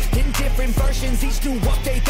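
Background music: a hip-hop style track with a heavy bass line, a steady beat about twice a second, and vocals.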